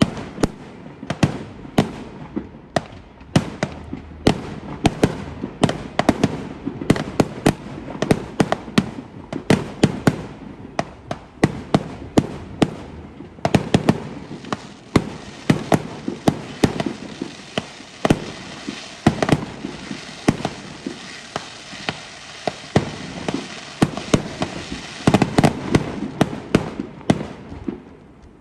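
Fireworks display: a rapid, unbroken barrage of bangs, several a second, over a continuous din from the shots between.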